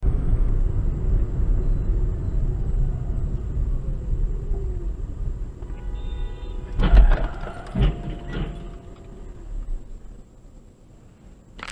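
Road and engine rumble inside a moving car, fading as the car slows. About seven seconds in comes a loud crash bang, followed by two more thuds, as an SUV collides and rolls onto its side.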